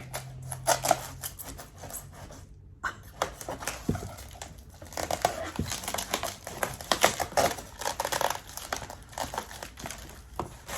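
Packaging from a plant shipment being unwrapped: irregular crinkling, rustling and tearing of the wrapping, with a brief break about two and a half seconds in.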